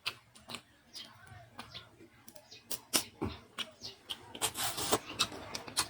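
Close-miked eating sounds from someone eating spicy seafood: irregular wet clicks of chewing and lip smacking, with a short noisy burst about four and a half seconds in.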